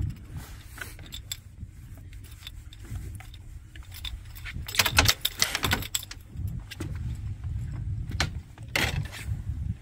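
Light metallic clinks and knocks from fishing tackle as a hook is worked out of a redfish, with a burst of clatter about five seconds in and another near the end, over a steady low rumble.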